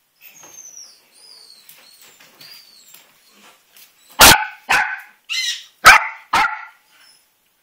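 Yorkshire terrier puppy barking five times in quick succession, short sharp barks about four seconds in.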